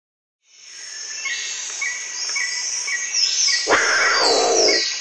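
Jungle-style sound effect fading in: birds chirping in quick repeats with falling whistles, then a big cat's roar, once, about three and a half seconds in.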